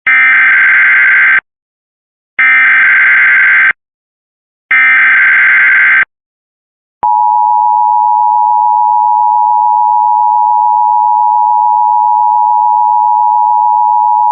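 Emergency Alert System SAME header: three bursts of buzzy digital data tones, each about a second and a half long with short gaps between them. About halfway through, the steady two-tone EAS attention signal starts and holds.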